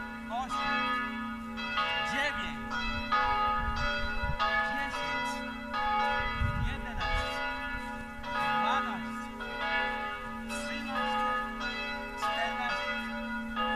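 Background music of bell-like chords that change about once a second over a steady low drone.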